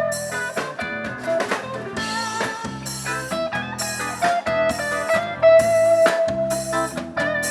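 Instrumental music with plucked guitar over a drum kit, at a steady loud level with a regular beat.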